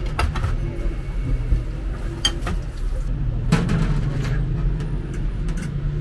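A few sharp clinks of crockery and metal, from dishes being handled at a steel sink and a bowl set on a large aluminium pot lid, over a steady low rumble of street traffic.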